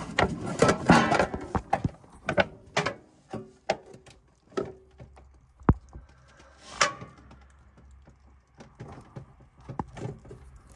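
Irregular knocks, clicks and clatter of assorted objects being handled and moved about. The sounds are dense for the first couple of seconds, then come singly and sparser, with a sharp click a little before the middle.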